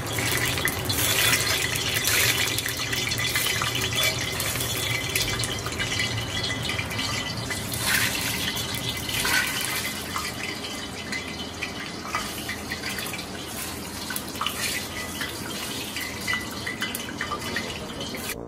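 Hot oil sizzling and crackling steadily in a cast-iron kazan around a whole onion frying in it, the step that takes the smell off the oil before making plov.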